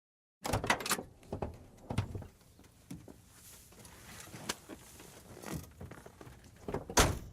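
A short mechanical sound-effect sequence: a string of sharp clicks and knocks at irregular intervals over a faint hiss, several close together near the start and the loudest knock near the end, stopping abruptly.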